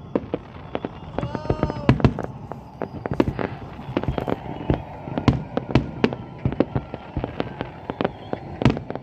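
Fireworks display: many sharp bangs and shell bursts in quick, irregular succession, several a second.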